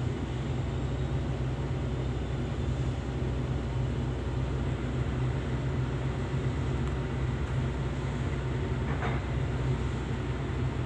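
Excavator's diesel engine running steadily at idle, heard from inside the operator's cab as an even low hum. A faint short knock about nine seconds in.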